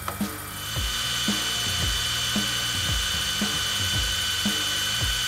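Background music with a steady beat over a metal lathe cutting a thread on a steel shaft; a steady high whine comes in about a second in.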